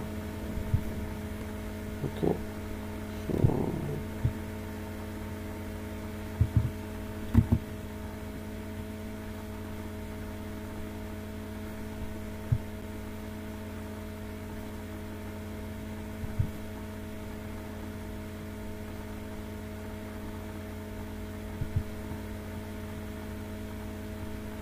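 Steady electrical mains hum picked up by the recording microphone, with a few short clicks scattered through it.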